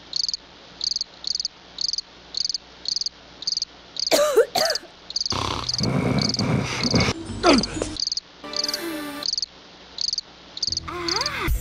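Cricket chirping as a cartoon sound effect: a steady, evenly repeated high chirp about twice a second, the stock cue for an awkward silence. In the middle, short vocal noises from a character rise over the chirping.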